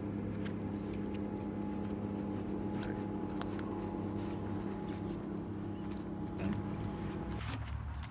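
A steady low hum made of several held tones, which changes about seven seconds in, with a few faint clicks.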